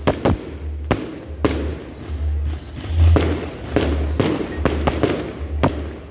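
Aerial fireworks going off overhead: a rapid, irregular series of sharp bangs and cracks, a few every second, over a low rumble.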